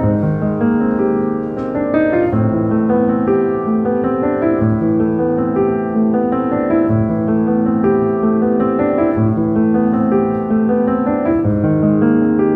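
Background piano music at an even level.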